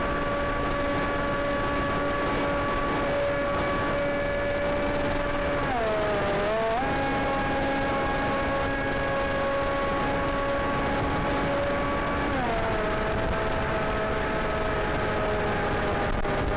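Electric motor and propeller of a Blade Theory W flying wing whining steadily in flight, heard from on board over a rush of air. About six seconds in the pitch dips and then climbs higher, and about twelve seconds in it drops lower as the throttle is changed.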